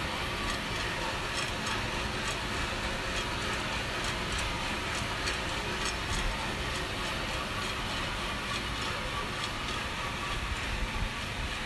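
Vina Roaster drum coffee roaster running steadily, its drum turning and blower running, with the beans tumbling inside giving a light, irregular clicking.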